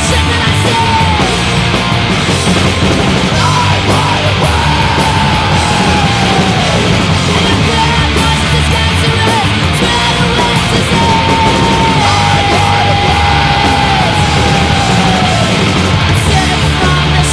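Crust punk band recording: loud, distorted guitars, bass and drums in a dense wall, with a melodic lead line sliding between notes above it and shouted vocals.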